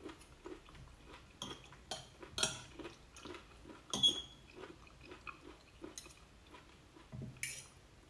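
A person chewing a mouthful of noodles in gravy, soft chewing sounds about twice a second, with a few sharp clinks of a metal fork and spoon against the plate. The loudest clink rings briefly about four seconds in.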